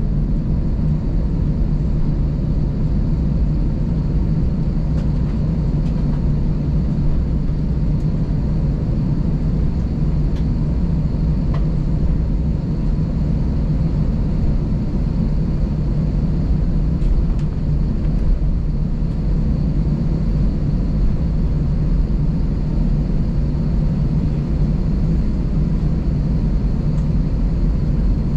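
Steady low rumble inside an Airbus A320 cockpit on the ground, with engine and air noise and a faint steady whine above it. A few soft clicks are heard now and then.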